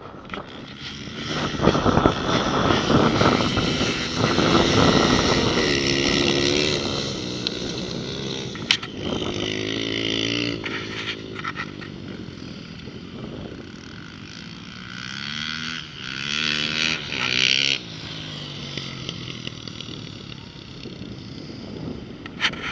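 Dirt bike engines revving up and down as the bikes ride laps of a dirt flat track. The pitch rises and falls as they accelerate and pass. The loudest pass comes in the first few seconds, with louder passes again about halfway through and later on.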